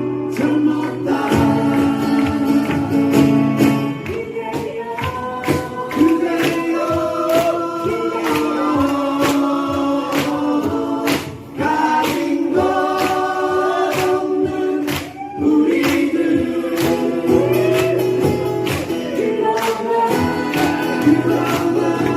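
Live performance of a song: voices singing over a band with a steady beat.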